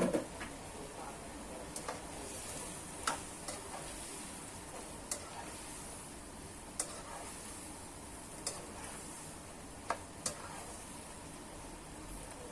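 Celery sizzling in a hot wok as it is stir-fried, with a spatula clicking sharply against the pan every second or two.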